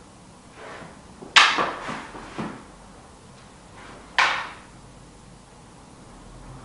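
Rattan practice sticks clacking against each other: a sharp clack about a second and a half in, a second one about four seconds in, and a few lighter knocks between.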